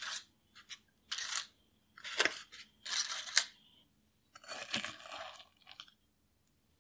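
Thick muffin batter with apple chunks being stirred and scooped in a glass bowl: a series of short, wet scraping strokes, with a couple of sharp clicks of the utensil against the glass. The strokes stop about six seconds in.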